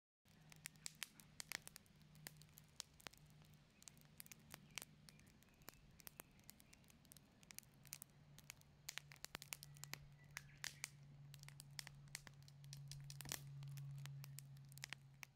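Faint crackling of split logs burning in a small steel fire stand: irregular pops and snaps over a low steady hum that grows louder near the end.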